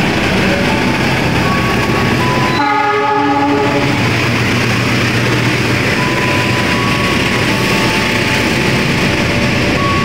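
Diesel-hauled passenger train running through the station: a steady loud rumble and wheel-on-rail noise as the coaches pass, with one short pitched tone about three seconds in.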